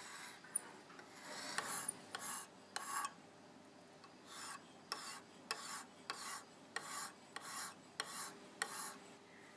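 Lansky sharpening system's green hone stone stroked along a 154CM steel knife blade: about a dozen short scraping strokes, one every half second to second.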